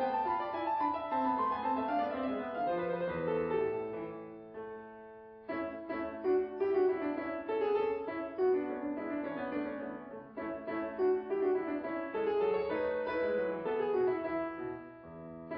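Background piano music. It thins out and nearly stops about four to five seconds in, then picks up again.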